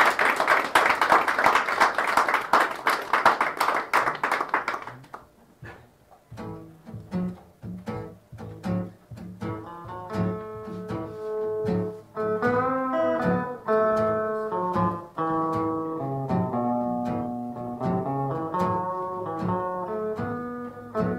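Audience applauding for about five seconds, dying away, then a guitar playing a slow tune of single plucked notes and chords.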